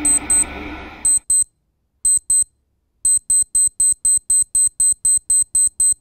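High-pitched electronic beeps on the soundtrack. They first come in short pairs, then from about three seconds in as a fast, even run of about four a second. Under the first second a murmuring, voice-like background plays, then cuts off suddenly.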